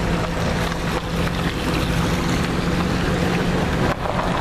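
Vehicle engine running with a steady low hum as it drives slowly, with wind noise on a microphone held out of the window.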